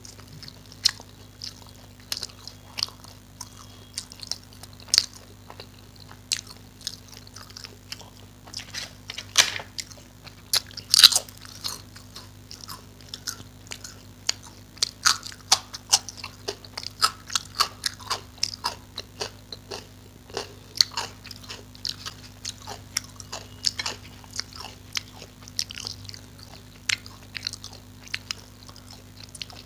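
A person eating close to the microphone: steady chewing with many sharp, irregular crunches of crisp food, the loudest crunch about eleven seconds in. A faint low steady hum runs underneath.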